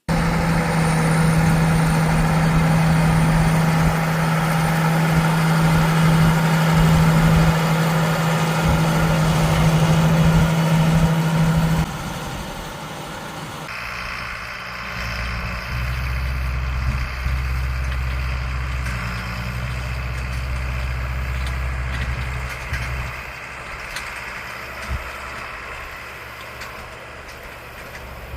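Heavy diesel farm machinery running steadily at harvest. About 12 seconds in the sound changes abruptly to a quieter, lower engine hum, which fades further near the end.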